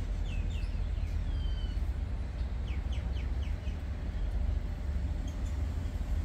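Small birds chirping: a few quick falling chirps, a longer falling whistle, then a run of four or five quick chirps, over a steady low rumble.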